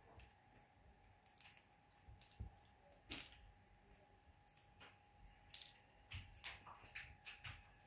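Near silence, broken by faint scattered small clicks and taps, more frequent in the second half, as a baby monkey handles and chews a plastic marker. A faint steady hum runs underneath.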